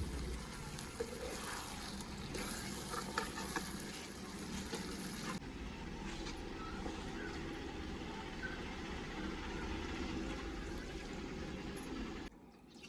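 Egg curry sizzling in a pan: a steady frying hiss, with a few light clicks of stirring in the first few seconds.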